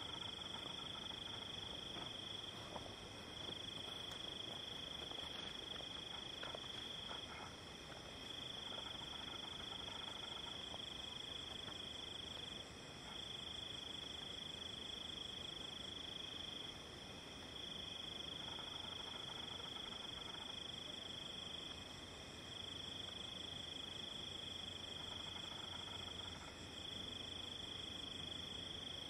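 Crickets trilling in a high, steady tone, in long trills of four to five seconds broken by short pauses.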